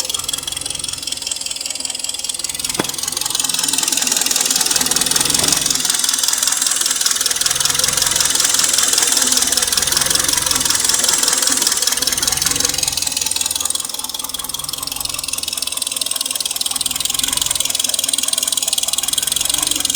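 Hyundai/Kia G4KD 2.0-litre four-cylinder petrol engine idling fully warm, with a fast knocking running through it that the owner says appears when the engine is hot. The idle does not hold steady: the sound falls away about two-thirds of the way through and builds back up, the floating idle speed the owner reports. A single sharp click about three seconds in.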